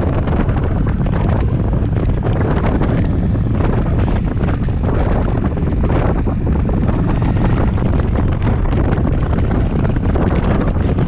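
Steady wind noise buffeting the camera microphone on a moving motorcycle, with the bike's running and road noise underneath.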